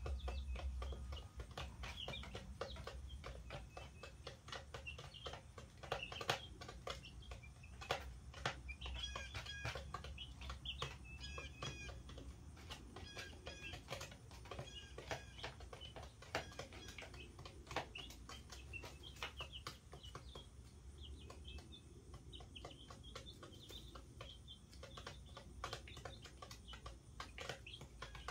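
A brood of young chicks, a couple of weeks old, peeping in many short high chirps, busiest in the middle, with scattered sharp ticks and taps throughout and a low steady hum underneath.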